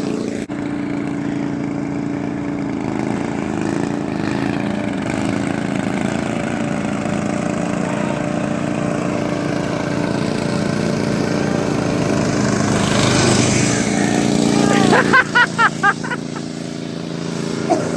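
Pulley-swapped riding lawn mower engine running steadily, swelling louder toward the end, with a few short voice sounds near the end.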